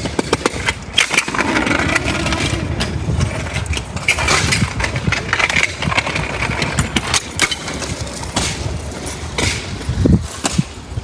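Kick scooter rolling over pavement: a steady low rumble with many sharp clacks as its small hard wheels cross cracks and joints and drop off the curb.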